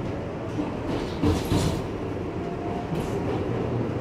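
An R62A subway car running at speed, heard from inside the car: a steady rumble of steel wheels on the rails, with a louder clatter about a second in.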